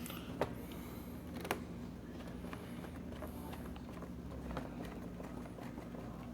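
Scattered light clicks and taps from handling a laptop's screen assembly and its small screws, with two sharper clicks in the first second and a half, over a steady low hum.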